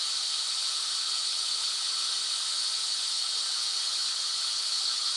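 Steady white noise, an even hiss that is brightest in the upper range and does not change.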